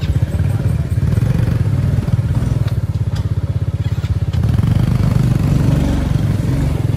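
Motorcycle engine running steadily while being ridden, with some clatter and knocks. The engine gets louder about four and a half seconds in.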